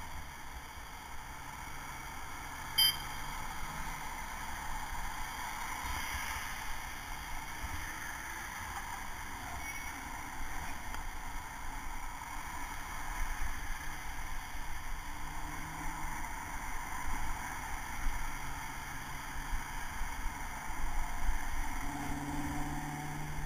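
Street traffic heard from a helmet camera on a moving bicycle: a steady mix of passing car engines and road noise, with a sharp click about three seconds in and a nearby engine hum growing louder near the end.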